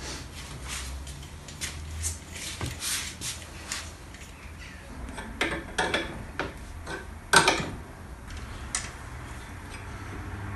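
Metal tools clinking, scraping and knocking on an alternator's rotor shaft while a tight washer and the worn bearing are worked off it. A sharp metallic knock about seven seconds in is the loudest sound. A low steady hum runs underneath.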